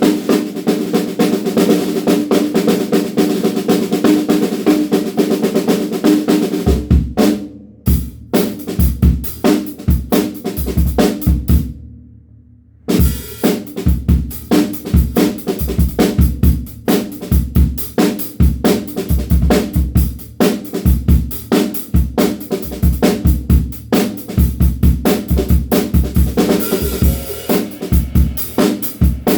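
DW Frequent Flyer drum kit being played: a rapid run of strokes first, then a beat of bass drum and snare that stops for about a second midway and starts again.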